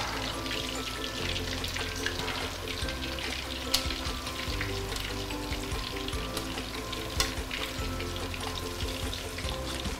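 Coated chicken pieces deep-frying in hot oil in a stainless steel wok: a steady crackling sizzle full of small pops. Two sharp clicks stand out, about four and seven seconds in.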